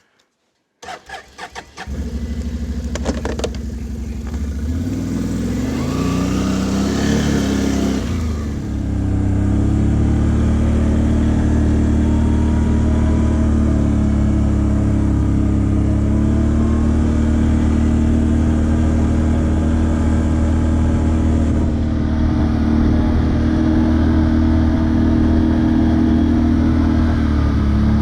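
An engine starting up and running: it climbs in pitch over the first several seconds, then runs steadily with small rises and falls.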